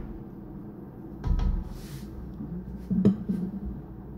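Kitchen clatter of a spoon against a cooking pot while a sauce is stirred: a dull knock about a second in and a sharper clack about three seconds in, over a low steady hum.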